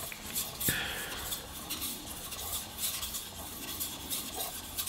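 Steel blade of a single-bevel Japanese kitchen knife scraping over a wet whetstone in quick, even back-and-forth strokes, about three a second. The flat bevel is being ground down to raise a burr along the edge.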